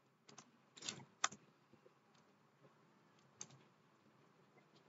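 A few faint, scattered keystrokes on a computer keyboard against near silence, most of them in the first second and a half and one more about three and a half seconds in.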